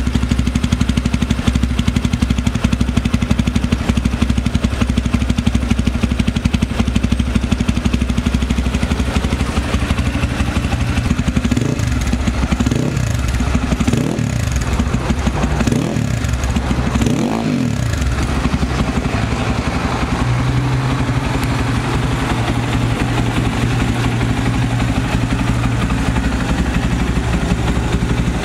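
Crossfire RM 250 motorcycle's 250 cc engine idling steadily through its twin mufflers, blipped in about five short revs in the middle, each rising and dropping back to idle.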